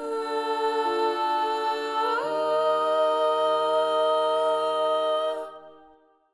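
The closing bars of a song sung in harmony by women's voices, mostly hummed or held notes, with one voice sliding up about two seconds in. The chord then fades out near the end.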